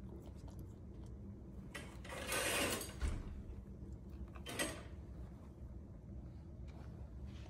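A dog moving about over a bell pepper on a wooden floor: a noisy rustle a couple of seconds in that ends in a sharp knock, and a shorter rustle about a second and a half later, over a faint steady hum.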